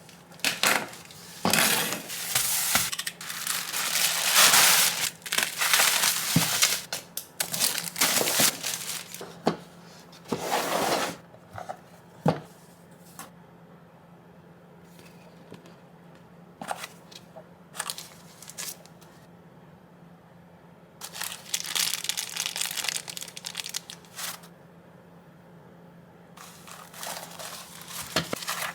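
Shipping packaging being torn open and crumpled by hand, in dense rustling spells with scattered knocks and clicks of handling between them.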